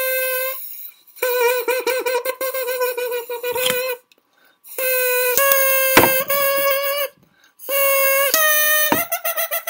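Plastic drinking-straw reed blown in a run of long buzzing notes, each pitch stepping a little higher as the straw is cut shorter with scissors. Sharp scissor snips break in about six seconds in and again near the end.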